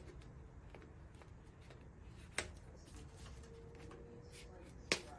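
Two sharp snips about two and a half seconds apart, with a few faint ticks between: cutters clipping off the excess tails of plastic cable ties.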